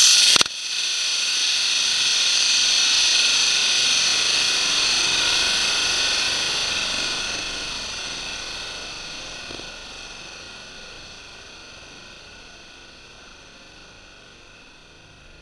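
Homemade potassium nitrate and sugar rocket motor firing on a static test stand: a loud rushing hiss that cuts out for an instant about half a second in, holds steady for several seconds, then slowly dies away over the next ten seconds.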